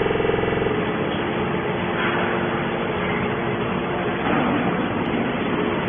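Hydraulic can baler running: a steady motor hum, then a dense, continuous machinery rumble from about a second in.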